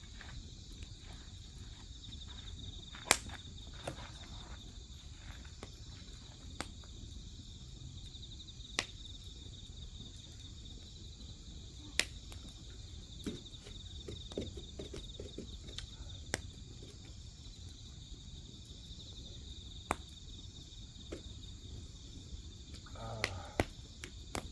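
Insects trilling steadily in a high, pulsing chorus over a wood fire, whose burning logs give off sharp crackling pops every few seconds. The loudest pops come about three seconds in and near the middle.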